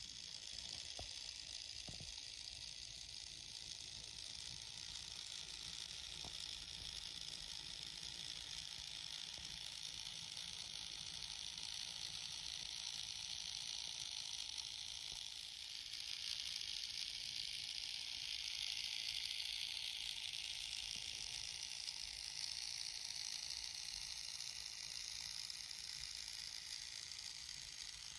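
Märklin Z-scale model locomotive running on track: a steady, high whirr from its tiny electric motor and wheels, with a few light clicks near the start, growing louder about halfway through.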